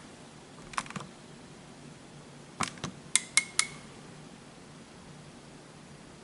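Buttons on a thermostat being pressed to switch the system on in heat mode: several sharp clicks in small groups, the last three each with a short high beep.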